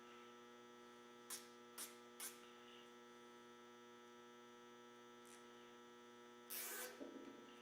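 Steady electrical hum. About a second in come three light clicks, and near the end a short rasp as a nylon zip tie is pulled tight around the drill press column's gear rack.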